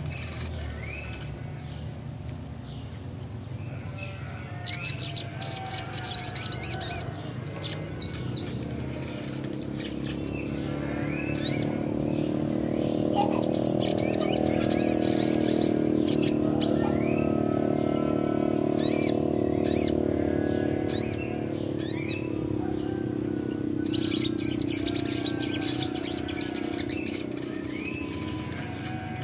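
Young crested jay (sogon) singing hard, in runs of rapid high chattering, rattling notes and clicks with short gaps between them. A low steady hum swells underneath in the middle and fades near the end.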